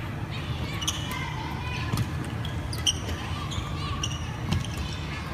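Badminton rally: rackets strike the shuttlecock with sharp clicks about once a second, and court shoes squeak on the wooden sports-hall floor as players move.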